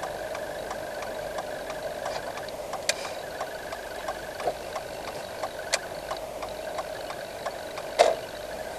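A car's turn-signal relay ticking evenly, about three ticks a second, over the steady hum of the engine inside the cabin while the car turns, with a louder knock about eight seconds in.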